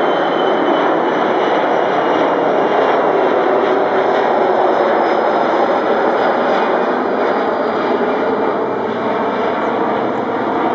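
Boeing 737-300's CFM56 turbofan engines at climb thrust, a steady loud jet roar heard from the ground as the airliner climbs away. A faint high whine sits over it, sliding slowly lower, and the roar eases slightly near the end as the aircraft recedes.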